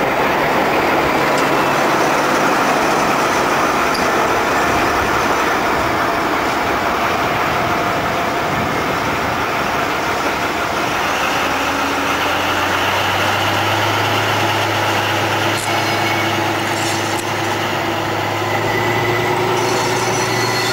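Deutsche Bundesbahn VT 08 diesel multiple unit rolling slowly past, its running gear rumbling steadily on the track. About twelve seconds in, a steady low diesel engine hum grows louder as the powered end car draws near.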